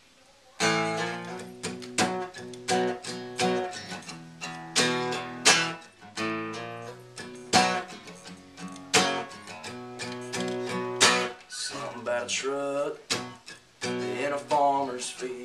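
Acoustic guitar played solo, a strummed chord intro starting about half a second in.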